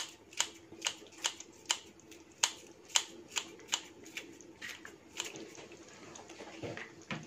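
Kitchen scissors snipping stalks of spring onion, about a dozen sharp snips roughly two a second that stop about five seconds in. A faint steady hum lies underneath, with a couple of soft knocks near the end.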